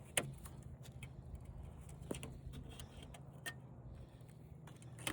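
A few sharp plastic clicks and light rattles as wiring is unclipped from the cable clips inside a flat-screen TV, over a steady low hum.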